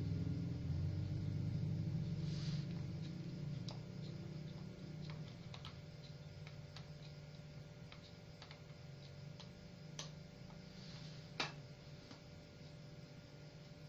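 Faint room noise with a low rumble that fades over the first few seconds, then scattered small clicks and taps, the sharpest one about eleven seconds in.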